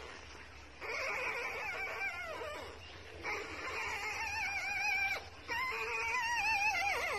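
Newborn beagle puppy crying: three long, wavering cries of about two seconds each, the last one falling in pitch as it ends.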